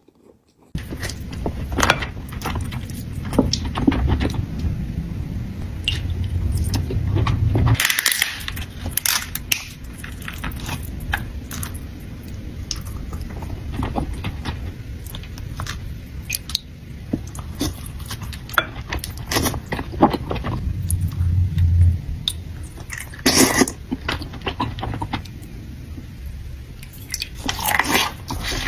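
Close-miked eating of a seafood boil: steady chewing with many sharp, wet clicks, smacks and crunches. A low rumble sits under the chewing for the first eight seconds or so and returns briefly later.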